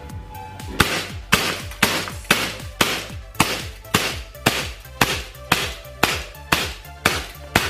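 CO2-powered M9A1 airsoft pistol running on a Point Blank CO2 cartridge, fired shot after shot at about two shots a second in a velocity test string. Each shot is a sharp crack.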